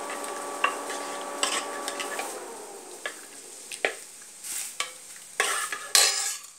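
Steel spoon stirring dalma, a thick lentil-and-vegetable stew, in a metal pot, with scattered clicks and louder scrapes against the pot wall toward the end, over a low sizzle from the just-added tempering. A steady hum sits underneath and dips slightly in pitch after about two seconds.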